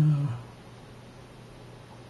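A short, level-pitched wordless 'mm' from a man's voice at the start, then a steady low hum of room tone.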